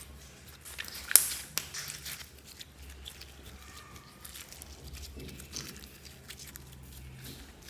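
Hands squishing and stretching glittery slime mixed with small beads: sticky clicks, crackles and pops, with one sharp pop about a second in.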